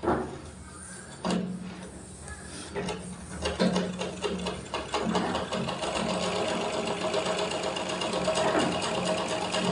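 An overlock (interlock) machine serges the edge of a handkerchief. It starts with a few knocks, then runs with a steady hum, and from about three and a half seconds in it stitches fast and evenly.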